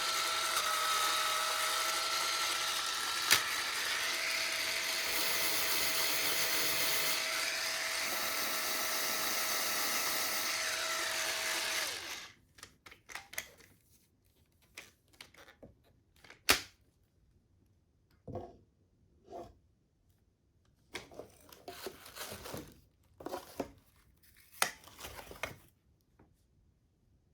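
Cordless electric spin scrubber's motor running with a steady whine, cutting off about twelve seconds in. After that come scattered clicks and rustling as the tool is handled, with one sharp click.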